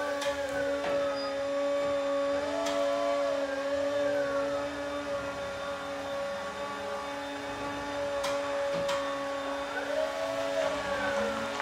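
Yale ERP30 electric forklift driving back and forth: its motor whine glides up and down in pitch as it speeds up and slows, over a steady high hum, with a few sharp clicks.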